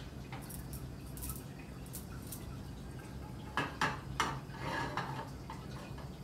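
A non-stick frying pan set down on a portable gas stove's burner grate: a few faint knocks, then a quick cluster of sharper metal clicks and knocks about three and a half to four seconds in.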